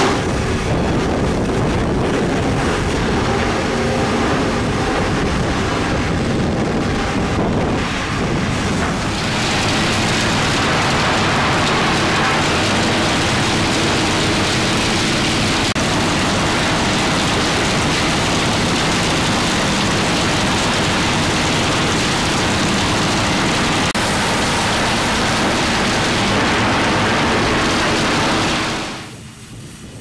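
Sawmill machinery running, a spinning saw blade and a chip conveyor among it: a loud, steady, dense rushing noise. It turns brighter about a third of the way in and drops away sharply near the end.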